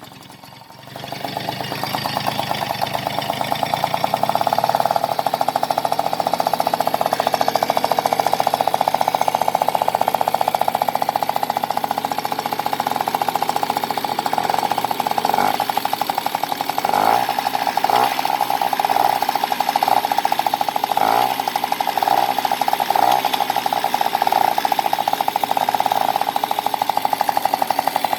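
Motobécane MBK 51 moped's AV10 two-stroke single-cylinder engine starting up and settling into a steady run with a fast even beat. Its owner hears a suspicious noise in it.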